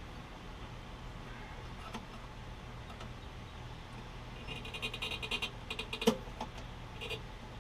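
Hand tools working on a small mower engine: a quick run of metallic clicks about four and a half seconds in, then a sharp metal clank, over a low steady hum.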